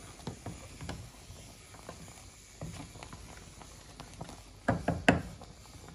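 Wooden spoon stirring chunks of cow leg and goat meat boiling in a stainless steel pot: scattered knocks and scrapes, with a cluster of louder knocks about five seconds in.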